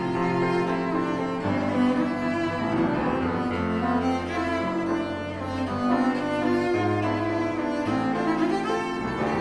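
Cello and piano playing an allegro movement of a cello sonata, the cello sounding held low notes of about a second each under moving higher lines.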